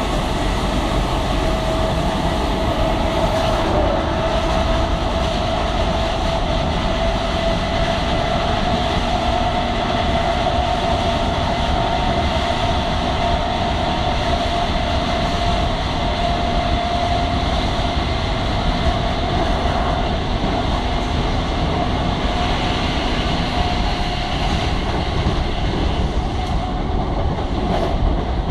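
British Rail Class 315 electric multiple unit running at speed, heard from inside the front carriage: a steady rumble of wheels on rail with a steady whine running underneath. A short sharp knock comes at the very end.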